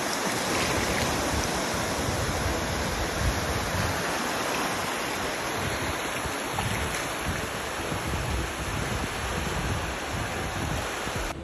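Surf breaking and washing up over a sandy shore, a steady loud rush of water, with wind buffeting the microphone.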